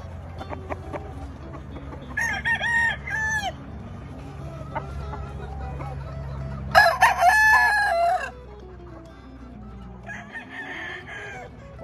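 Rooster crows, three of them: one about two seconds in, the loudest around seven seconds in, and a fainter one near the end.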